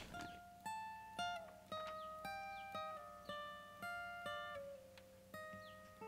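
Soft background music: a plucked guitar picking single notes, about two a second, each ringing out and fading before the next.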